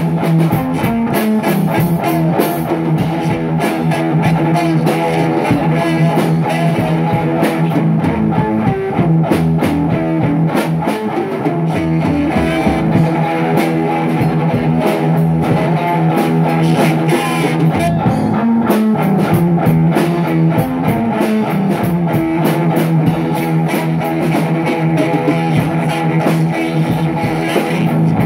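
Rock music with a crunchy electric guitar and drums, the guitar holding long sustained chords that change every few seconds.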